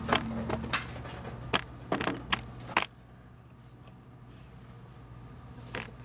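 A handful of light clicks and knocks from objects being handled at a bedside over the first three seconds, and another near the end, over a low steady hum.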